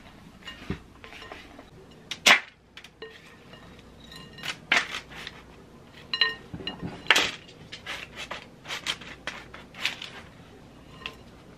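A silicone spatula knocking and scraping against a glass mixing bowl as a sticky granola mix of oats and nuts is stirred, then tipped out onto a parchment-lined baking tray. It makes a string of sharp clinks and knocks, the loudest about two seconds in and again about seven seconds in.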